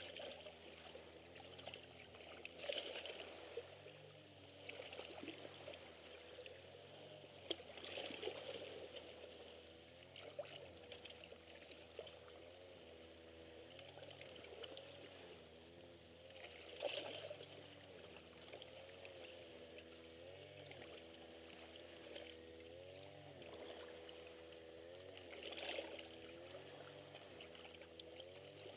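Faint small sea waves lapping and splashing against a shoreline rock, with a louder splash every few seconds, over a steady low hum.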